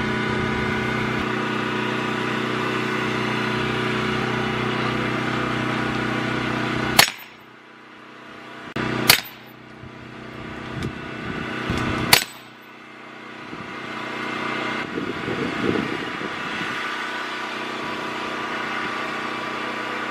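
Three single gunshots, about two and three seconds apart, with a steady hum of an idling engine before and between them.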